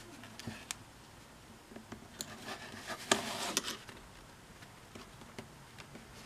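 Quiet handwork on chrome-tanned leather glued at the edge: a few light taps and clicks, then a brief rustle about three seconds in as the leather is shifted on the cutting mat and its edge folded over and pressed down by hand.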